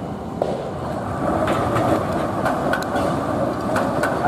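Melbourne Z3-class tram running past on wet track, its steel wheels clicking over rail joints several times over a steady rumble that grows louder about a second in.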